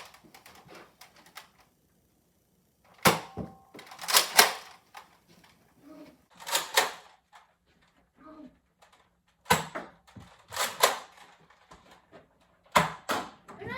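Nerf foam-dart blasters firing: sharp snaps, singly and in quick pairs, every one to three seconds, with quiet gaps between.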